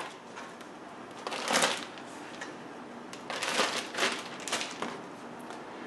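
Plastic zip-top bag rustling and crinkling as cut potato pieces are dropped into it: a short burst about a second and a half in, then a longer stretch of rustling from about three to five seconds.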